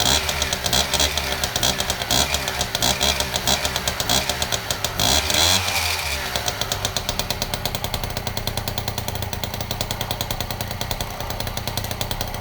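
Piaggio moped's small single-cylinder two-stroke engine running: revved up and down for the first six seconds or so, then settling into a steady idle that it holds.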